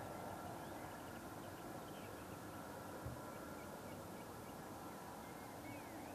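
Mil Mi-24P helicopter heard faint and far off, a steady drone with a thin whine from its twin turboshaft engines. A single soft thump comes about three seconds in.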